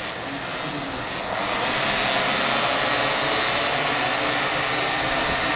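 A field of 50cc modified racing scooters with their engines revving together at the race start, a dense, high buzzing that gets clearly louder about a second and a half in and then holds.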